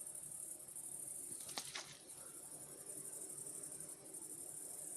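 Low, steady hum of honeybees fanning at crowded hive entrances at night during a strong nectar flow, with crickets chirping continuously high above it. Two faint clicks come about a second and a half in.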